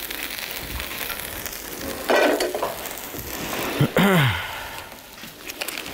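Stir-fried beef sizzling hot, a steady frying hiss, with a brief louder burst about two seconds in and a short falling vocal sound about four seconds in.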